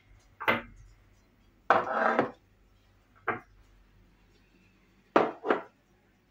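A few short knocks and clatters of kitchenware being handled and set down, about five in all, the longest and loudest about two seconds in.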